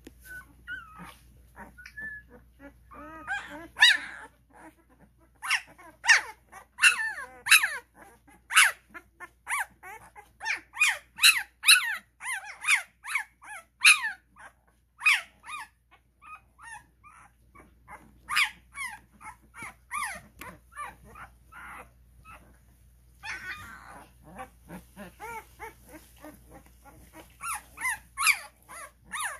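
Twelve-day-old Cane Corso puppies crying in short, high squeals and whimpers, two or three a second at their busiest, with a short lull about two-thirds of the way through.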